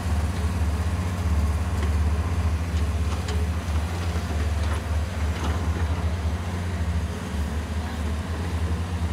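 Diesel engines of a JCB 175 and a Doosan DX160 excavator working, a steady low rumble, with a few faint knocks between about two and six seconds in.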